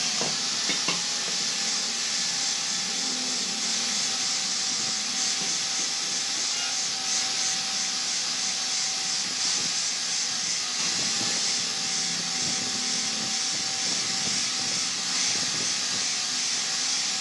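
Handheld angle grinder running steadily with an abrasive disc pressed against a steel pipe: a continuous high grinding hiss over the motor's steady whine.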